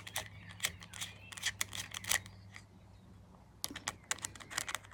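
Light, irregular clicks and ticks of a small Torx screwdriver and hands working a tiny screw out of a motorcycle handlebar switchgear housing, coming quicker near the end, over a faint steady hum.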